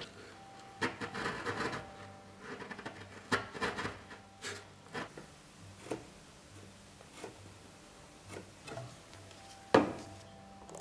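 Hand chisel paring small bevels onto a wooden leg in short scraping cuts, followed by scattered light taps and clicks, with one sharp knock near the end.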